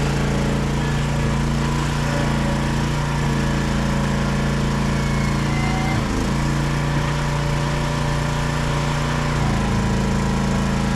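A small engine running at a steady speed.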